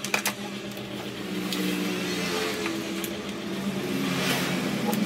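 Stiff sticker backing paper crinkling and rustling as it is peeled away from vinyl film, with a few sharp crackles in the first moment and a louder rustle near the end. Under it runs a steady engine-like drone that shifts in pitch.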